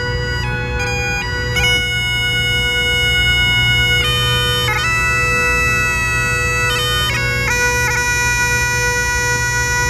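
Great Highland bagpipe playing a tune: steady drones underneath a chanter melody that steps between held notes, with quick grace notes between them.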